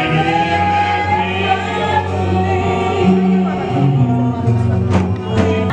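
A choir singing a gospel hymn over instrumental accompaniment with held bass notes.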